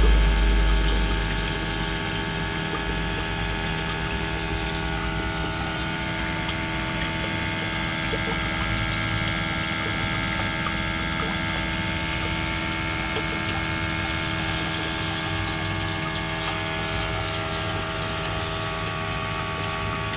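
Steady machine hum with many constant tones held unchanged throughout, like a motor-driven pump running.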